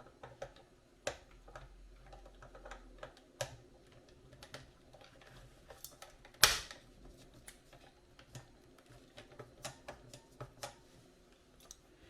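Scattered light clicks and taps of hands handling an RC transmitter and its aluminium steering wheel, with one louder knock about halfway through.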